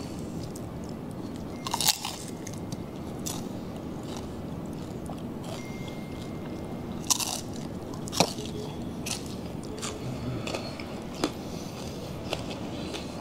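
Crunching and chewing of crispy pata, deep-fried pork leg with crackling skin, eaten by hand. There are several sharp crisp crunches, the loudest about two seconds in and around seven and eight seconds, with softer crackles and chewing between.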